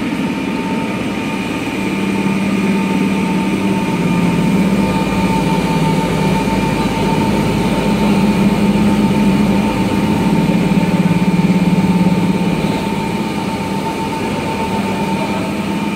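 Fiber cement board machine running, its row of electric motors driving belts, pulleys and rollers. The sound is a steady mechanical hum with a constant high tone and a lower drone that swells from about two seconds in, then eases near the end.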